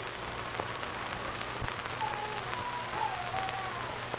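Steady hiss dotted with faint crackles and clicks over a low hum, the surface noise of an old, worn film soundtrack. A faint wavering high tone drifts in about halfway through.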